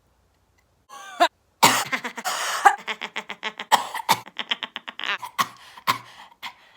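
A person's coughing fit: about a second in, a quick breath in, then a loud cough that breaks into a long run of rapid hacking coughs, with a few single coughs after it.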